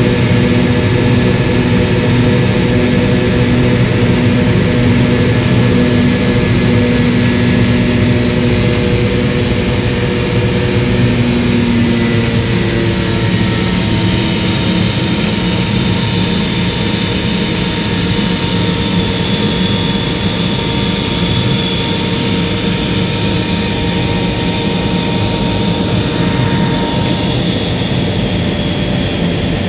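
Cabin noise of a McDonnell Douglas MD-88 climbing after takeoff: the steady roar of its rear-mounted Pratt & Whitney JT8D turbofans and the rush of air. About twelve seconds in, the lower hum steps down in pitch and a faint high whine comes in.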